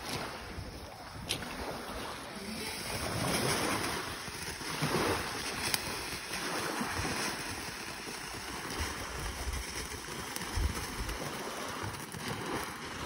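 Small ground fountain fireworks spraying sparks with a steady hiss, growing fuller about two and a half seconds in, with a few faint pops.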